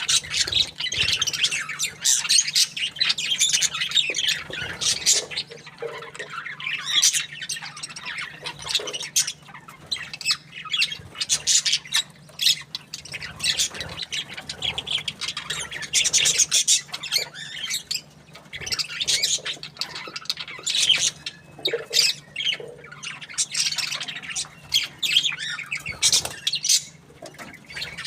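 Budgerigars chirping and squawking continuously in a dense, rapid chatter of short high notes, with a faint steady hum underneath.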